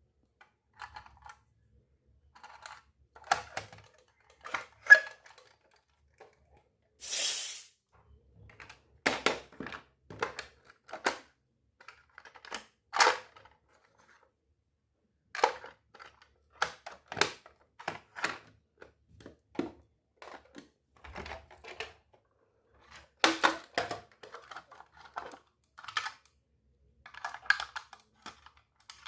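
Miniature steel toy kitchen set pieces being handled and unboxed: scattered small clicks, taps and clinks, with a short rustle about seven seconds in.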